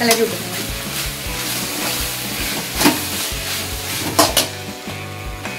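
Rice and vegetables sizzling in a hot metal kadai as a metal ladle stirs and scrapes through them, mixing the rice into the fried vegetables. A few sharp clinks of the ladle against the pan come near the start, about three seconds in, and twice around four seconds.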